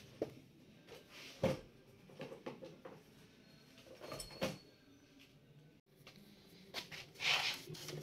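Light knocks and clicks from handling the metal chassis and parts of an open desktop PC, spaced a second or two apart, followed near the end by a brief scratchy scrubbing as the memory slots are cleaned of dust.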